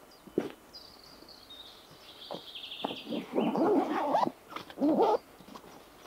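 A small songbird sings one high, descending phrase that breaks into a rapid trill. In the second half, two louder, rough close-by sounds cover it, the first about a second long and the second about half a second.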